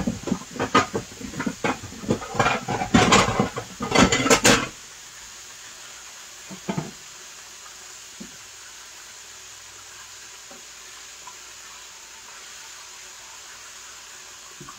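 Kitchen clatter: a quick run of knocks and clinks of dishes and utensils, loudest about four seconds in, then it stops. A steady low hiss follows, with a couple of soft knocks.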